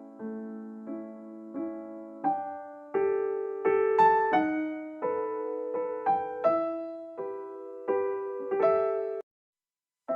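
Background piano music: single notes and chords struck one after another, each fading away. It cuts out to silence for about a second near the end, then starts again.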